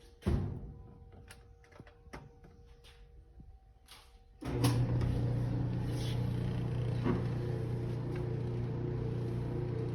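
A thump, a few light clicks, then about four and a half seconds in a clothes dryer starts up and runs with a steady low electric hum.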